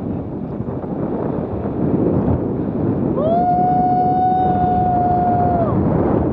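Wind buffeting the microphone on a tandem paraglider in flight. About three seconds in, a single high steady tone is held for about two and a half seconds, sliding up at its start and down at its end.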